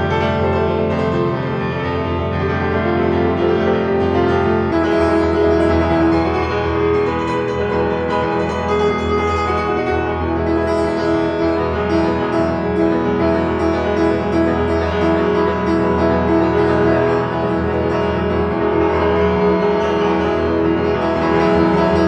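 Solo acoustic piano playing held, ringing chords over a strong bass; the chord changes about five seconds in.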